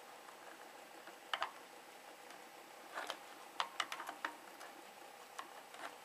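Faint scattered clicks and taps of fingers and a small screw against the plastic cover of an air compressor's pressure switch as the cover screw is being fitted. There is a single click about a second and a half in, then a quick run of clicks around three to four seconds, over a faint steady hum.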